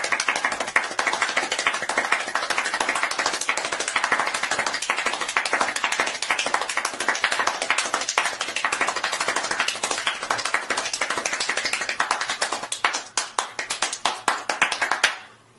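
One person's hands clapping at extreme speed, pushed beyond 14 claps a second, a continuous dense rattle of claps. Near the end the claps slow into separate, spaced strokes and then stop.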